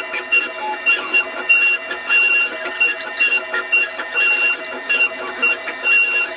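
Electronic beeping at one high pitch, repeating two to three times a second with beeps of varying length, over a busy clatter.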